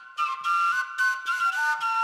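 Background music: a quick, two-part melody on a whistle- or flute-like wind instrument, the notes changing several times a second, with a brief gap at the very start.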